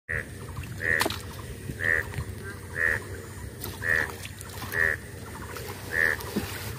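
A short honking call repeating steadily about once a second, over a low steady rumble.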